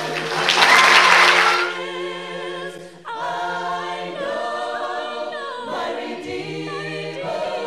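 A congregation of mixed voices singing a hymn a cappella in parts, with sustained, slowly moving notes. It follows a loud burst of noise in the first second or two.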